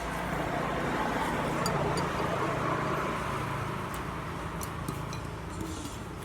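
A motor vehicle passing on the road: a low engine hum with tyre and road noise that swells and then fades off.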